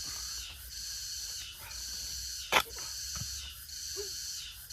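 High, steady insect chorus, swelling and dipping in pulses about once a second, with one sharp knock about two and a half seconds in.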